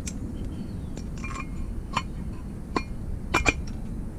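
Sharp metal clinks and taps of a two-stroke crankshaft being set back into the Zeda AM6 engine case: a short rattle about a second in, single clinks after, and a quick double clink near the end, over a steady low rumble.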